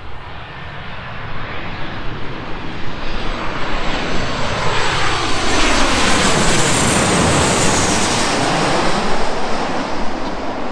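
Twin-engine jet airliner on final approach passing low overhead: the engine noise builds, peaks about six to seven seconds in with a falling pitch as it passes, then fades as it heads for the runway.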